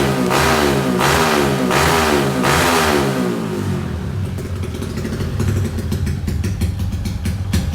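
Honda MSX125-based single-cylinder four-stroke engine in a Honda Wave 125, bored to 58 mm with a 2 mm longer stroke and running a full aftermarket system. It is revved in quick repeated throttle blips, about one every 0.7 seconds, then drops about three seconds in to a lumpy, popping idle.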